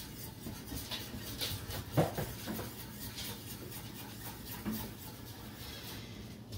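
Wire whisk stirring a thin sauce in a stainless steel saucepan, its wires scraping and tapping against the pan in an uneven rhythm, with one louder knock about two seconds in.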